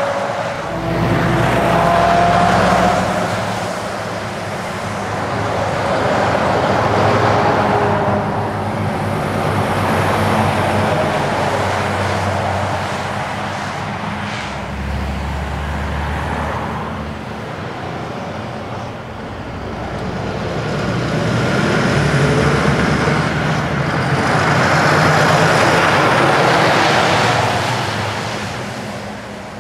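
Diesel trucks with semi-trailers passing one after another, each engine and its tyre noise swelling as it goes by and fading away.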